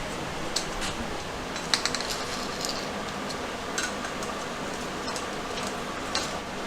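A few light metallic clicks and clinks of small hardware being handled, with a cluster of quick clicks about two seconds in, over a steady background hiss.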